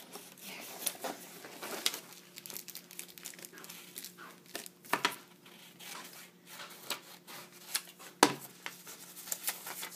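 Clear plastic packaging crinkling and crackling as it is handled, with scattered sharp clicks; the sharpest crack comes about eight seconds in.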